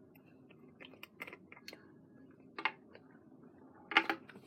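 Scattered light clicks and taps from handling a bottle of clear glue as it is added to start the slime, with a louder cluster of taps near the end.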